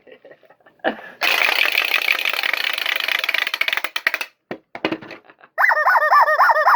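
Paper or tape tearing and crackling for about three seconds as a mail package is ripped open, with a few clicks after. Near the end comes a loud warbling tone that wavers up and down about four times a second.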